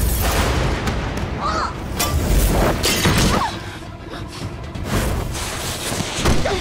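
Dramatic film score mixed with heavy booms and crashing impacts, typical of a staged explosion sequence.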